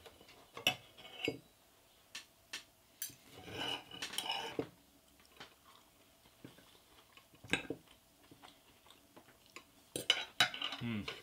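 Fork and knife clinking and scraping on a plate while pancakes are cut and eaten: a few separate sharp clinks, a short scraping stretch about four seconds in, and a quick cluster of clinks near the end.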